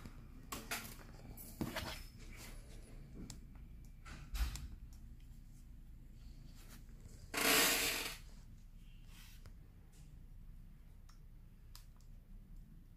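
Scattered light clicks and knocks from a battery LED puck light being handled on a cutting mat, with one short loud rush of noise lasting under a second a little past halfway.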